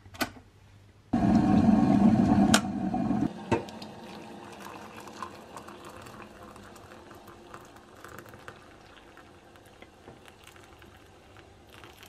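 Electric kettle switched on with a click, then a loud stretch of water boiling for about two seconds that stops suddenly, followed by hot water poured from the kettle into a cup, the pouring slowly fading.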